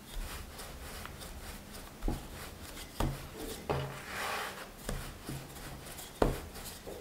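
Wooden rolling pin rolling dough on a floured wooden board: soft rubbing, with a few short knocks of wood on wood as the pin is set down and picked up, and a brief scrape about four seconds in as the dough is turned.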